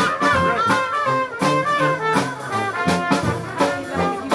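Live Dixieland jazz band playing: trumpet and trombone lines over a steady rhythm-section beat.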